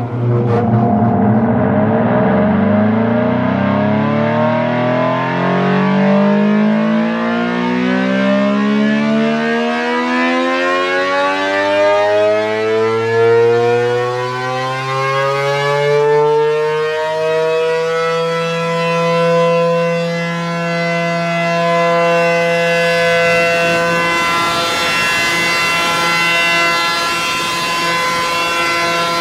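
ACA P-10 electromechanical siren winding up from a low growl, its pitch climbing steadily for about the first eighteen seconds. It then holds a loud, steady wail at full speed, swelling and easing slightly in loudness.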